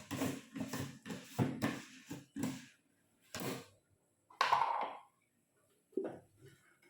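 Handling noises: a quick run of short rustles and light knocks for the first two and a half seconds, then a few spaced single ones, the loudest a sharper rustle about halfway through.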